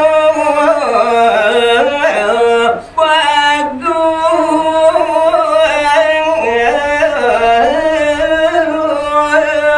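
A man singing a line of Balinese pupuh sinom (geguritan tembang) solo, in long held notes that slowly bend and ornament up and down, with a short pause for breath about three seconds in.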